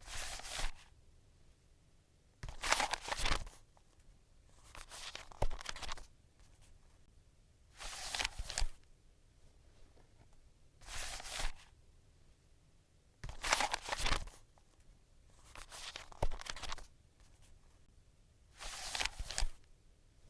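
Footstep sound effect: slow, separate crunching steps, one about every two and a half seconds, eight in all.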